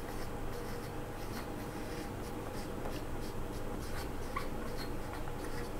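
Marker pen writing on a whiteboard: a run of faint, short scratchy strokes.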